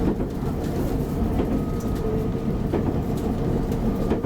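Meitetsu 7000 series electric train running steadily, heard from inside the car: a continuous low rumble with a few wheel clacks over rail joints.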